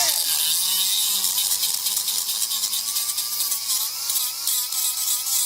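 Angle grinder grinding rust and crud off a brake caliper bracket where the pads slide: a steady bright hiss with a wavering whine. It cuts off abruptly near the end.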